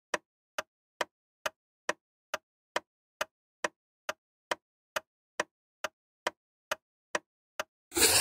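Countdown-timer ticking sound effect: sharp, even clicks a little over two per second, counting down the quiz timer. Near the end the ticking stops and a brief noisy burst of about a second marks the answer reveal.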